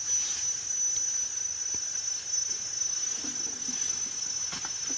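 Insects trilling in one steady, unbroken high-pitched drone, with a few faint rustles near the end.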